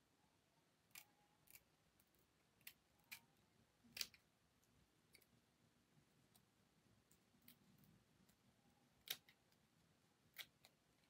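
Scissors snipping through a lace wig's lace and hair to cut the ear tabs: faint, sharp snips scattered with pauses between, the loudest about four seconds in.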